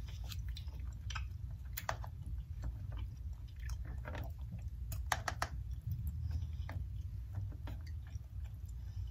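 Close-up chewing of smoked sausage and steamed vegetables, with wet mouth clicks. A white plastic fork clicks now and then against a black plastic meal-prep container, most often about five seconds in. A low steady hum runs underneath.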